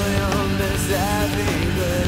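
Background rock song with a singing voice over a steady band accompaniment.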